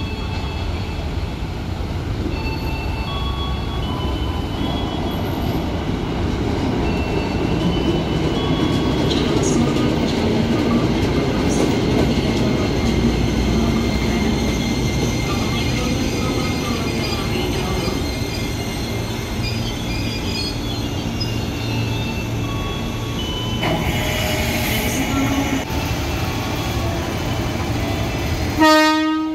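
KRL electric commuter train pulling into the station and running along the platform: a steady low rumble of wheels on rail, with high squealing tones that come and go. Near the end a short loud tone is followed by a sudden drop in sound.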